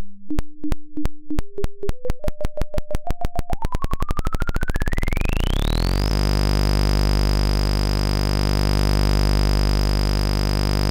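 Synthesized oscilloscope-drawing audio signal: sine and sawtooth waveforms that draw a moving mushroom on an oscilloscope in XY mode. A ticking pulse speeds up into a continuous buzz over about six seconds, while a tone beside it steps up in pitch, then glides up into a high steady whistle over the buzz.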